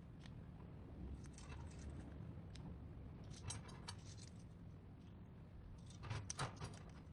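Faint, scattered clicks and light metallic clinks of small metal pieces being handled, in a few short groups, the loudest about six seconds in.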